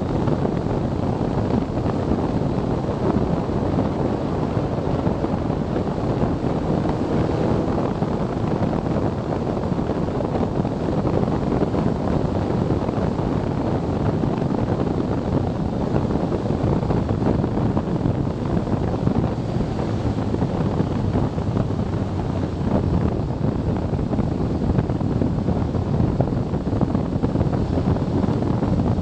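Steady wind rush buffeting the camera microphone on a moving motorcycle, with the BMW K1300S's inline-four engine running underneath.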